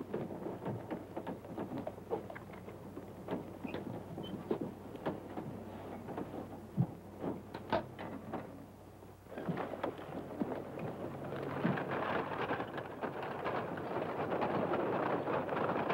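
Scattered footsteps and knocks for the first nine seconds or so. Then a steady outdoor bustle of people and horses moving about sets in and grows louder toward the end.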